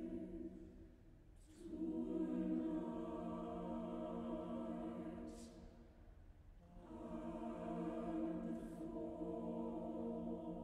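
Chapel choir singing slow, held chords in long phrases, with a short drop in loudness about a second in and again around six seconds in before the next phrase begins.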